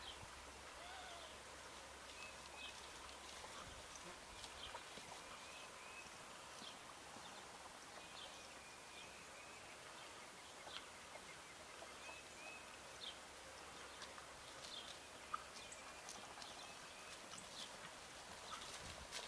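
Faint outdoor quiet with scattered short bird chirps over a soft steady hiss, and a few brief ticks.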